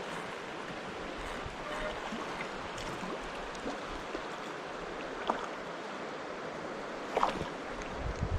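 Mountain stream water rushing steadily, with a couple of short knocks about 5 and 7 seconds in.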